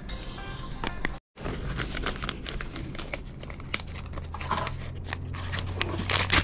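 Paper envelope and papers being handled, a run of small crisp crinkles and rustles. The audio cuts out briefly about a second in.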